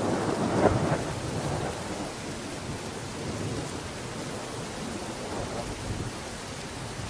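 Steady rushing noise with a low rumble, swelling a little in the first second.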